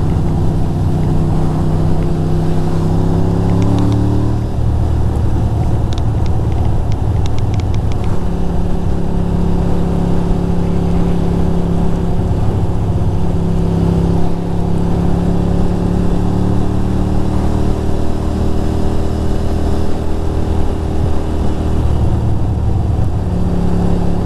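2006 Ducati Monster 620's air-cooled L-twin engine under way, rising in pitch as it accelerates for about four seconds, dropping at a gear change, then running at a steady cruise. A steady rush of wind runs underneath.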